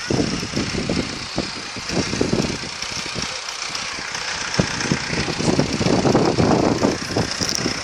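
An engine idling, with an uneven low rumble and a constant hiss.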